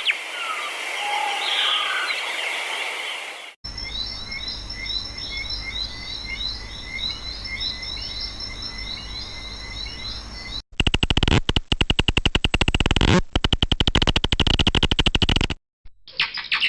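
Forest recordings edited together: birds chirping, then one short call repeated over and over, then a loud, rapid pulsing trill from about two-thirds of the way in.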